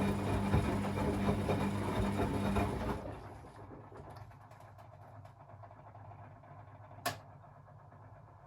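Beko WA 1050 washing machine running with a low hum and a busy churning noise that stops about three seconds in, leaving a quiet background; a single sharp click comes near the end.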